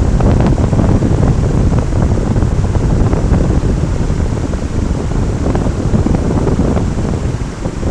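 Kutralam Main Falls (Peraruvi) pouring: the loud, steady rush of a large waterfall, heaviest in the low end, with a brief dip near the end.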